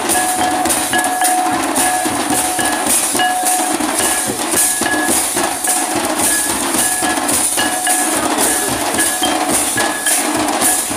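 A troupe of large double-headed drums beaten together in a fast, driving dance rhythm, with clashing metal percussion, recorded loud and rough. A short high note recurs about once a second over the drumming.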